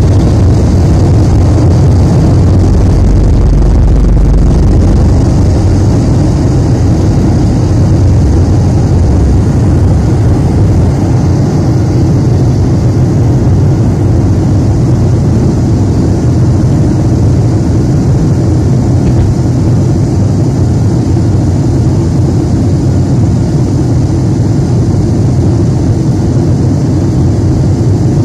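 Cabin noise of an Avro RJ85's four turbofan engines at takeoff power, heard from a window seat beside the wing, as the jet rolls down the runway, lifts off and climbs. A loud, steady roar with a deep rumble, heaviest in the first few seconds and easing about six seconds in.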